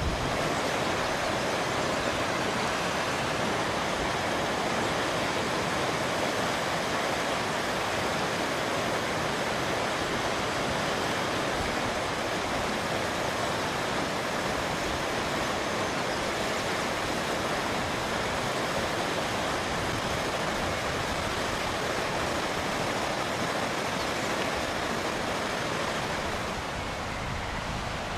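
Steady rushing of a mountain stream tumbling in small cascades over granite boulders.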